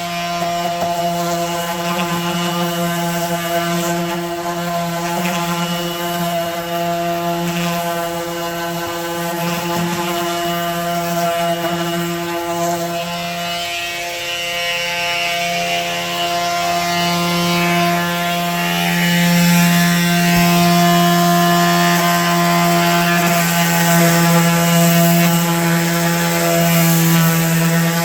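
Electric pad sander running steadily while rough-sanding a wooden table top: a steady motor hum and buzz that shifts slightly in tone and gets a bit louder about halfway through.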